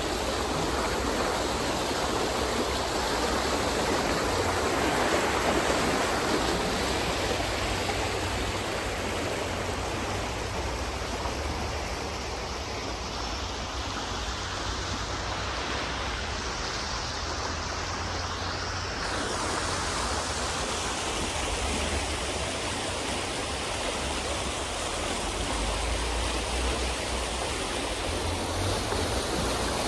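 River water rushing and churning white through a narrow concrete-lined channel: a steady, unbroken rush of flowing water.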